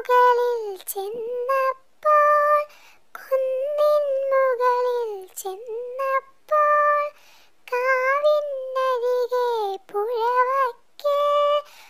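A high voice singing a Malayalam children's rhyme, unaccompanied, in short sung phrases with brief pauses between them.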